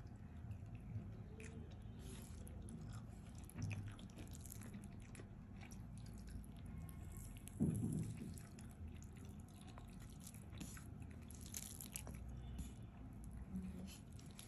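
Quiet sounds of eating rice and curry by hand: fingers squishing and mixing rice on a plate, with faint chewing and small clicks. One louder, dull thump about eight seconds in.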